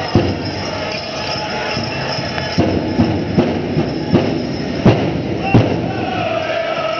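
Powwow drum music: a big drum struck in heavy thumps about every three quarters of a second, with singers' voices and the hall's din over it.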